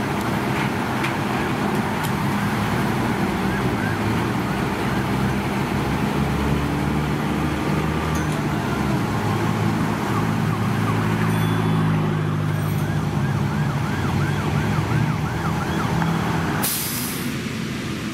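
Fire engine's diesel engine running steadily, with an emergency siren yelping in the background from about halfway in. The engine sound drops away near the end.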